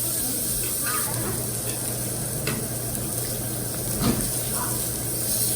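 Meat sizzling on a grill, a steady hiss with a couple of light clicks from utensils.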